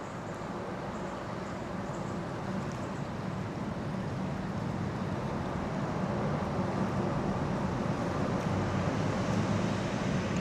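Steady rushing of flowing river water, growing slowly louder.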